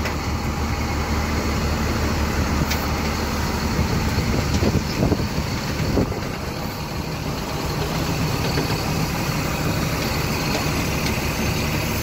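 A diesel engine running steadily while the grain auger's hydraulic swing hopper is moved side to side. The hum shifts higher in pitch about four seconds in, with a short knock about six seconds in.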